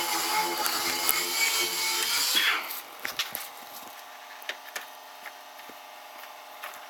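A power tool's electric motor runs steadily with a whining hum, then cuts off about two and a half seconds in. A few light clicks and knocks follow.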